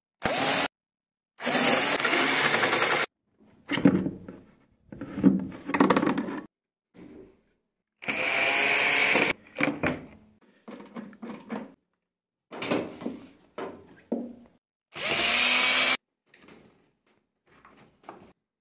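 Cordless screwdriver running in short bursts of one to two seconds, four times, driving out screws on a washing machine being dismantled. Between the bursts, clunks and rattles of plastic and metal parts being handled.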